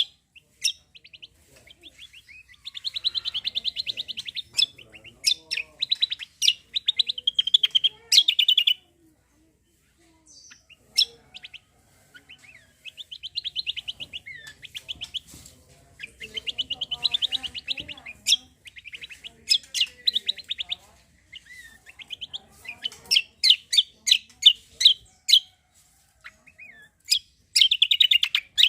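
Kecial kombo (cucak kombo) songbird singing in bursts of rapid, high trills a second or two long, mixed with sharp single chirps, with a short pause about nine seconds in.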